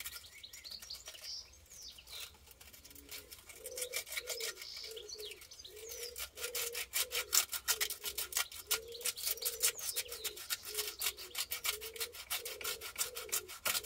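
Old paper gasket residue being rubbed off the engine block's mating face by hand, a rasping back-and-forth stroke about twice a second that starts about three seconds in and keeps going. Birds chirp faintly near the start.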